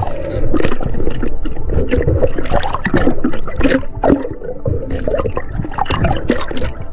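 Water gurgling and sloshing around an underwater camera as a diver swims with fins, in irregular surges.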